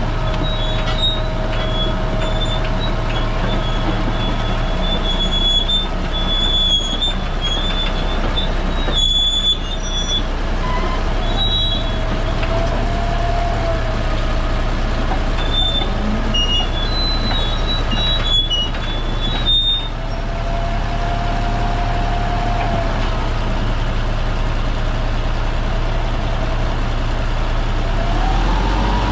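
Komatsu D275A-2 crawler dozer driving on its steel tracks: the diesel engine runs steadily, with the tracks squealing over it. A whine rises in pitch near the end.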